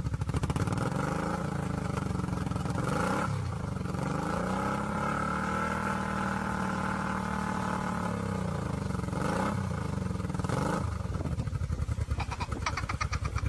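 Motorcycle engine revving. Its pitch climbs, holds and falls back several times, with one long rise and fall in the middle of the stretch, and it runs with an uneven pulse near the end.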